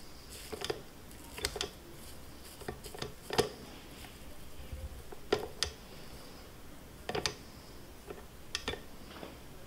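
Spatula scraping thick cookie dough off a stand mixer's flat beater, with about a dozen irregular light knocks and clicks as it taps the paddle and the stainless steel bowl. The mixer is not running.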